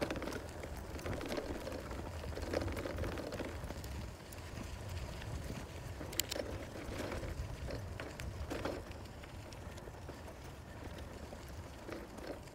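Bicycle rolling over a dirt and gravel trail: steady tyre and ride noise with a low rumble and scattered small clicks and rattles.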